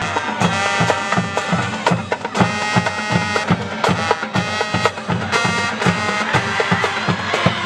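Music with a fast, steady drum beat, about three beats a second, over sustained pitched notes; it starts suddenly.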